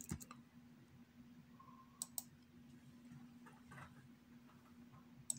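Faint clicks of a computer keyboard and mouse as a number is typed into a spreadsheet: a click right at the start, a quick pair about two seconds in, and another near the end, over a faint steady low hum.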